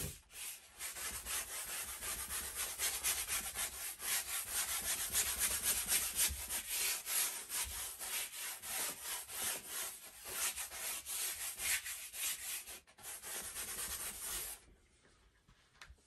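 Wide flat bristle brush scrubbing oil paint onto a stretched canvas in rapid back-and-forth strokes. It stops about a second and a half before the end.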